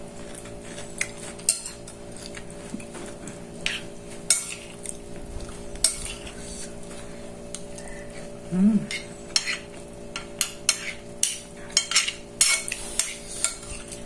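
Metal fork clinking and scraping against a ceramic plate while eating, in scattered sharp clicks that come more often in the second half, over a steady low hum.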